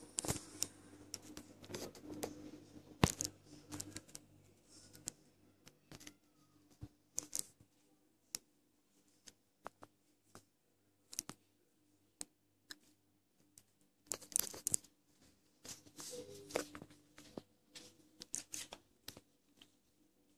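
Scattered sharp clicks and short crinkling rustles at irregular intervals, with a faint steady low hum in the first few seconds.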